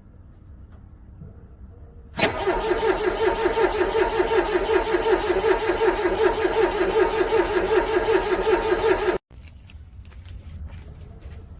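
A car engine cranking on its starter in freezing cold, pulsing evenly for about seven seconds without catching, then cutting off abruptly.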